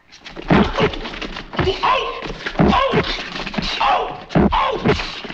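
Slapstick fight sound effects: a quick run of slaps and thudding hits, about one or two a second, with short yelps and cries between them.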